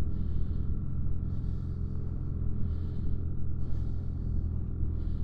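Snowmobile engine idling steadily, a low even drone.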